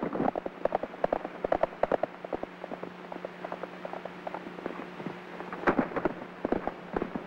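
Horses' hooves clattering through brush: a quick, irregular run of knocks that thins out midway and comes back louder a little before the end. A steady low hum from the old film soundtrack runs underneath.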